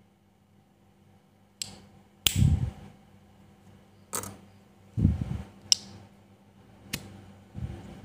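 Dunhill Rollagas butane lighter being worked by hand: its lid and lever snap in a series of about seven sharp metallic clicks, irregularly spaced about a second apart, several with a short dull thud after.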